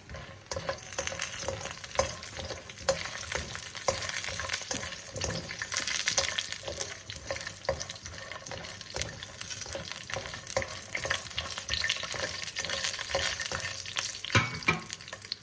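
Makhane (fox nuts) frying in ghee in a kadhai, sizzling as they are stirred, with frequent clicks and knocks of the spoon against the pan.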